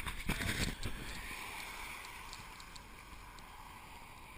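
Wind and road noise on an action camera mounted outside a moving car, a steady rushing that slowly fades. A few knocks in the first second as the camera is handled.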